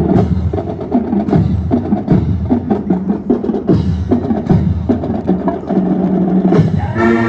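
Marching band drumline playing: rapid snare and tenor drum strokes over pitched bass drums. Brass comes in with sustained chords just before the end.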